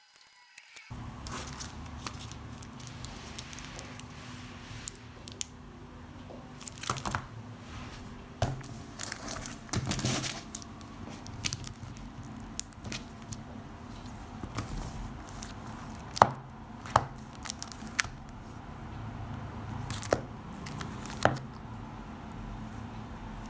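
Clear plastic packaging bags crinkling and rustling as notepads are handled and packed, with scattered sharp crackles, several of the loudest in the second half, over a steady low hum.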